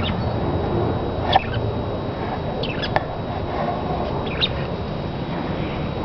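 Pet budgerigars chirping: a few short calls that sweep up and down in pitch, spread over several seconds, over a steady low background noise.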